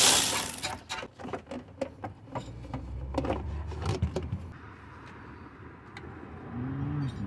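Cordless ratchet spinning briefly on a 10 mm bolt, then a run of plastic clicks and knocks as the black plastic air-box housing is worked loose and lifted out of the engine bay. A short low hum near the end.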